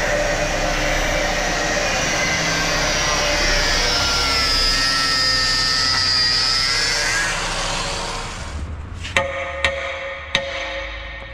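Angle grinder with a cutoff wheel cutting through the heavy-gauge steel skirt of a concrete pump hopper, its whine dipping and rising as the wheel bites, then winding down about eight seconds in. Then three sharp hammer blows on the steel, each ringing.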